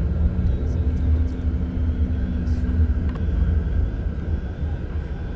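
Car cabin noise while driving: a steady low rumble of engine and road, with a light click about three seconds in.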